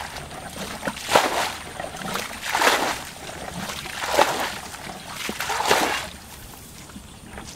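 Water being bailed out of a muddy ditch with a plastic bucket: each scoop is tipped out in a splashing rush, four times about a second and a half apart, then it stops about six seconds in.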